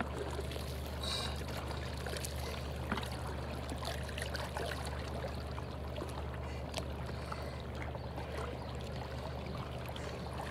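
Shallow sea water lapping and trickling around rocks at the water's edge, with small scattered splashes and clicks.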